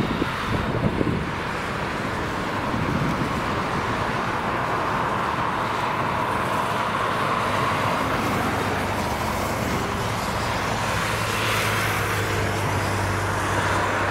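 Boeing 747-8F freighter's four GEnx-2B turbofan engines running as the jet rolls out along the runway after landing: a steady jet rush and rumble that holds at an even level, with a low hum joining about ten seconds in.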